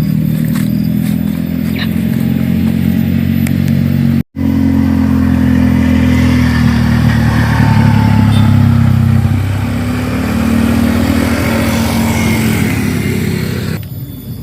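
A vehicle engine running, with a brief cut-out about four seconds in; the sound drops away sharply near the end.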